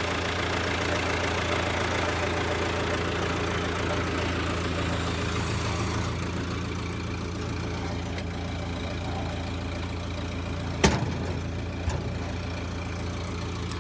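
An engine idling steadily. About eleven seconds in there is a single sharp metal clank, then a lighter one a second later.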